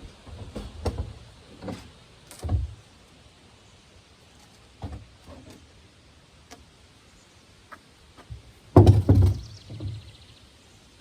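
Scattered knocks and thumps, with a loud quick run of several thumps about nine seconds in.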